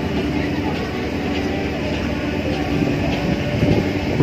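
Steady low diesel drone with a hum from the engines of the moored ro-ro car ferry Masirei, running at the berth.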